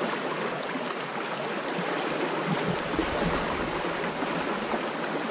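Shallow creek water running steadily over a riffle, a continuous rushing hiss with no let-up.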